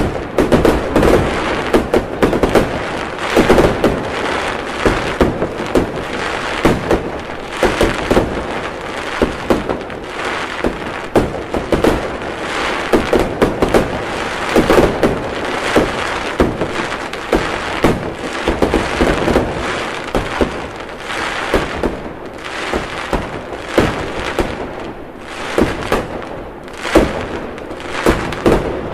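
Fireworks display: a dense, unbroken run of sharp bangs from aerial shells bursting, several a second, over continuous crackling.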